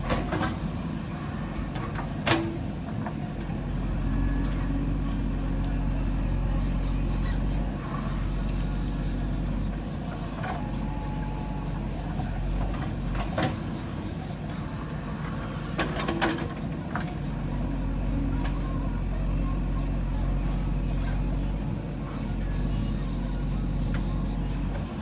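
JCB 3DX backhoe loader's diesel engine running steadily under work, with a few sharp metallic clanks, one about two seconds in and a cluster around the middle.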